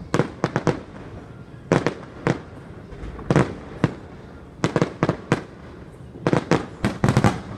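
Aerial fireworks shells bursting overhead: irregular volleys of sharp bangs, two to four at a time, with short gaps between them and the densest run near the end.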